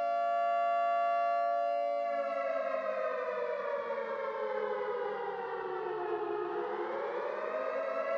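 Civil defense siren sounding the curfew: a steady wail that slowly sinks in pitch for several seconds, then climbs back up to its steady tone near the end.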